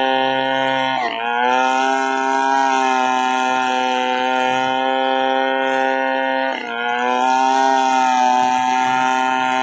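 Chainsaw running at high revs with a steady pitched drone. Its pitch dips briefly and recovers twice, about a second in and again near seven seconds.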